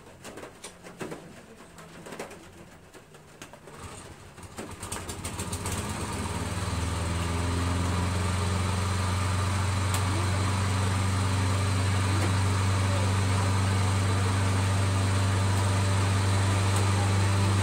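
Craftsman walk-behind lawn mower engine: a few light knocks, then about four seconds in the engine comes up over a couple of seconds and settles into a steady run.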